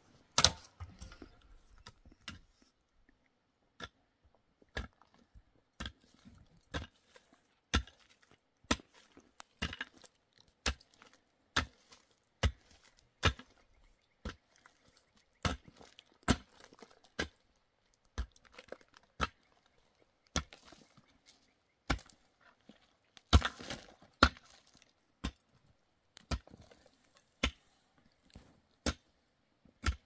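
A pickaxe striking into the ground in steady blows, about one a second, each a sharp thud, with a couple of louder blows about two-thirds of the way through.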